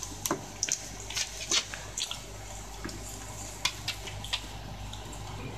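Shiba Inu eating dry kibble from a bowl: irregular crunching and wet chewing clicks, busier in the first couple of seconds.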